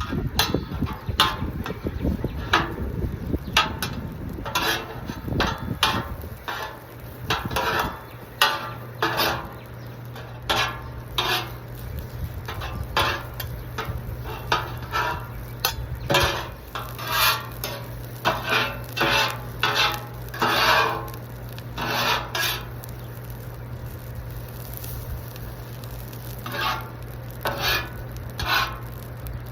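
Metal spatulas scraping and clacking on a Blackstone flat-top griddle as food is stirred and turned, in many short, irregular strokes, with some sizzle from the food.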